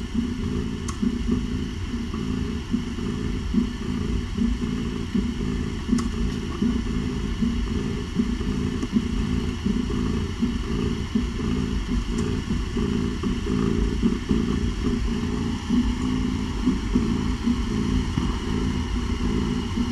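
Cats purring while nursing: a continuous low rumble that pulses unevenly.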